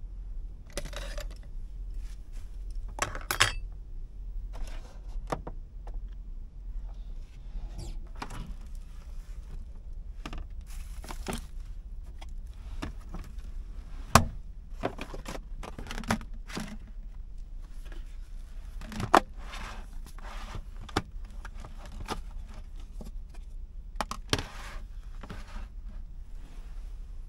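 Small objects being handled at close range: a string of clinks, scrapes, rustles and knocks, with sharp knocks about fourteen and nineteen seconds in, over a steady low hum.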